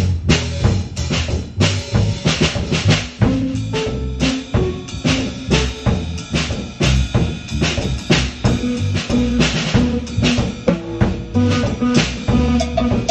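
Band music: a drum kit keeps a steady beat with kick and snare over held bass notes.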